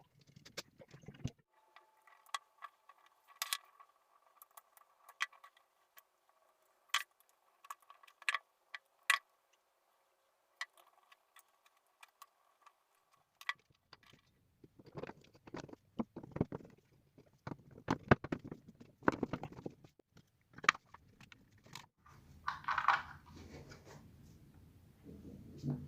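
Scattered sharp clicks, knocks and light scrapes of small parts being handled. A faint steady tone runs under them in the first half, and the knocks come thicker and louder from about halfway on.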